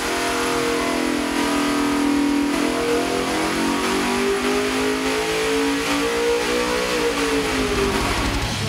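451-cubic-inch Ford Windsor V8 (Dart block) running at full throttle on an engine dyno, its rpm climbing steadily through a power sweep, then falling away near the end as the pull finishes.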